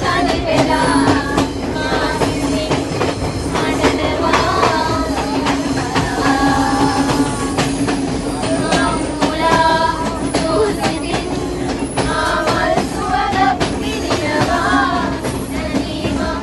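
Train running, its wheels clattering over the rails, with singing and music over the rolling noise.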